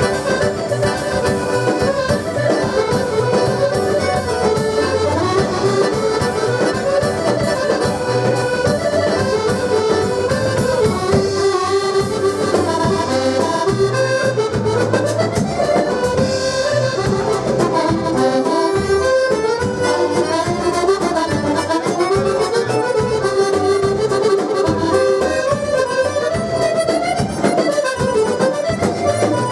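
Two button accordions playing a tune together: a moving melody over a steady, regular bass beat.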